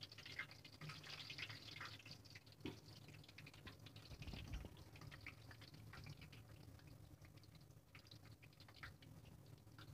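Battered spinach leaves deep-frying in hot oil: a faint sizzle of many small crackles and pops, busiest in the first two seconds.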